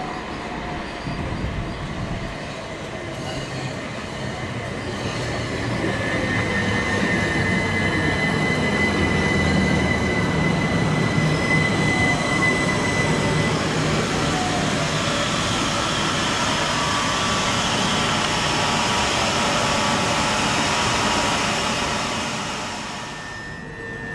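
Multiple-unit passenger train running along the line, growing louder over the first several seconds and dying away near the end. A steady high tone is heard for several seconds in the first half.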